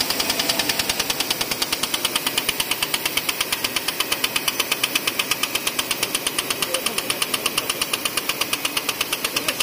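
High-speed label die-cutting machine running with a fast, even clatter of repeated strokes as printed label sheets are fed through.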